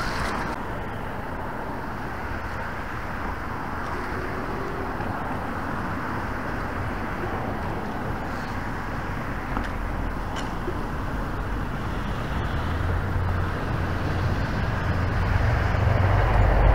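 Steady road traffic noise, with a low rumble building over the last few seconds.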